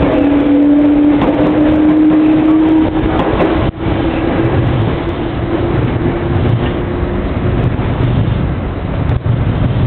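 Electric train running past at close range, a loud steady rumble with a whine that rises slightly in pitch and fades out about three-quarters of the way through.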